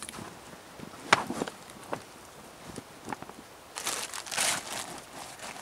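Camp gear being handled and packed into a backpack: a few light knocks and rustles, then a plastic bag crinkling for about a second after the middle.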